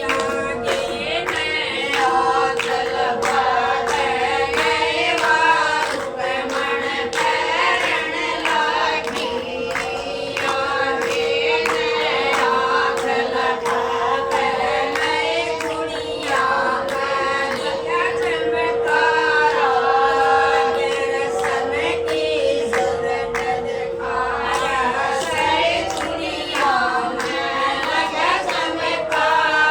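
A group of women singing a Haryanvi folk song together in unison, with a regular percussive beat, likely hand-claps, and a steady drone note held underneath for most of the passage.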